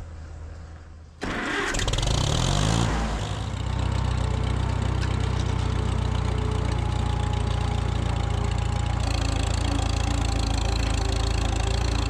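Farmall M-TA tractor's four-cylinder gasoline engine cranking over and firing about a second in, just after being refuelled from a gas can. It picks up speed over the next two seconds, then runs steadily as the tractor is driven.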